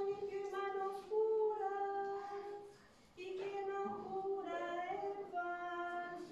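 Women's and children's voices singing the responsorial psalm in slow, long-held notes, with a brief pause about three seconds in.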